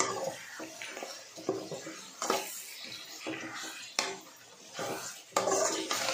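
A long metal spatula scrapes and clanks against a metal pot while chicken heads are stirred into their spice masala. The strokes repeat about twice a second, with a sharper knock about four seconds in and another near the end.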